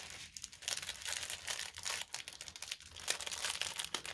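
Plastic packaging of a diamond-painting kit crinkling and rustling as it is handled, with quick irregular crackles throughout.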